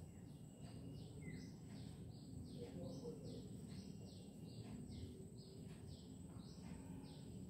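A bird chirping over and over, about two short falling chirps a second, faint over a low steady background rumble.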